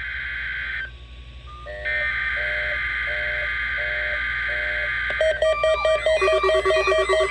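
Electronic alert tones: a steady high buzzy tone, a brief quieter break, then a steady tone with a repeating beep about every 0.7 s, five times in all. Synthesized music with quick repeating note patterns comes in about five seconds in, over a low steady hum.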